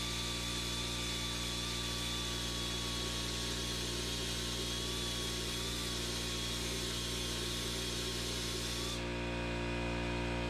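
Pneumatic die grinder whining at high speed as it grinds the cast-iron valve pocket of a Big Block Chevy oval port head, blending the bowl into the valve seat. Its pitch wavers slightly under load, and it stops about nine seconds in. An air compressor hums steadily underneath.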